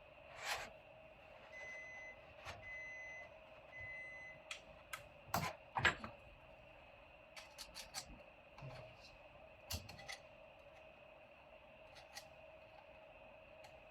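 Faint scattered clicks and taps of small plastic and metal parts being handled as a mini PC's top cover is worked loose. About two seconds in, three short electronic beeps sound about a second apart.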